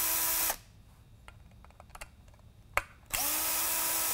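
Cordless drill-driver backing out small screws that hold the optic assembly of an LED spotlight. It runs in two short spells: one stops about half a second in, and the other spins up in pitch and holds steady a little after three seconds in, with light clicks of the bit and handling in the gap between.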